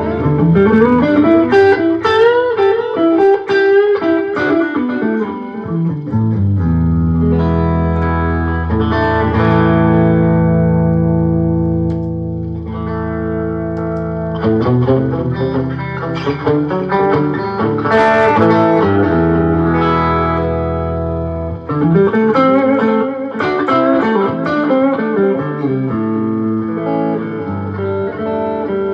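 Telecaster electric guitar played through a pedalboard into a Fender Deluxe Reverb 1965 Reissue amp, set at about 6–7 on volume. Quick runs with notes sliding up and back down give way to ringing, sustained chords that fade out about 12 seconds in. A second stretch of held chords follows, then more quick sliding runs about 22 seconds in.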